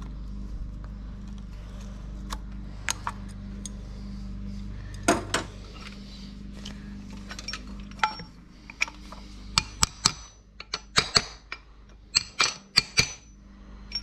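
Hand tools clinking and tapping on the steel parts of a New Holland round baler while a new chain idler bearing is fitted. Scattered light clicks, then a quick run of sharper metal strikes in the second half.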